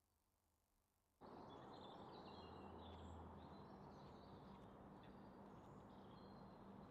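Faint outdoor ambience with small birds chirping and twittering, cutting in suddenly about a second in after near silence.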